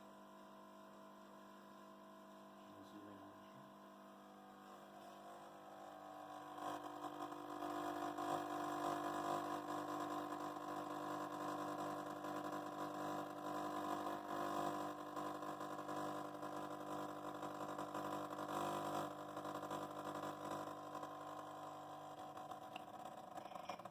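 Vibratory pump of a modified Gaggia Baby Class espresso machine humming steadily as it pushes water through the coffee during an automatic shot. It swells in after about five seconds and eases off slightly near the end, as the controller scales back the flow at the end of the shot.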